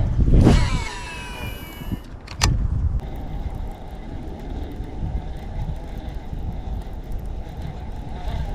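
A cast with a baitcasting reel fitted with a digital casting brake: a whine falling in pitch as the spool spins and slows over the first two seconds, then a sharp knock about two and a half seconds in. After that, a steady low rumbling noise.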